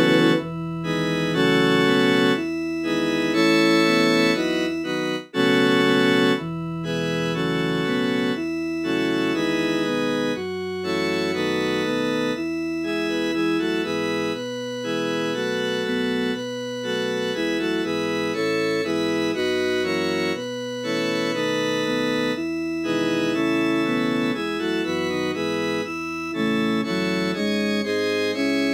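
Computer-rendered NoteWorthy Composer MIDI playback of a Christmas choral hymn in an organ sound, sustained chords moving in even steps, used as a practice track for the bass part. There is a brief break between phrases about five seconds in.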